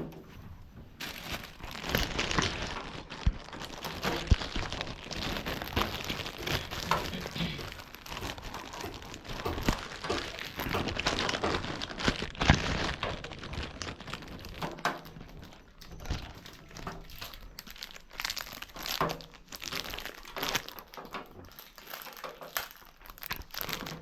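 Irregular crinkling and rustling with many scattered sharp knocks and clicks, like handling or rubbing noise.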